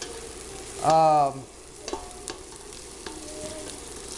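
Onions and cumin seed sizzling as they fry and caramelize in olive oil in a pot, with a spoon stirring and scraping and a couple of sharp taps on the pot. About a second in, a short vocal sound from a person is the loudest thing.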